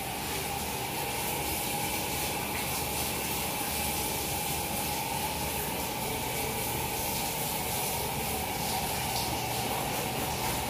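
Water spraying steadily from a handheld shower head as soap is rinsed off a person's legs and body.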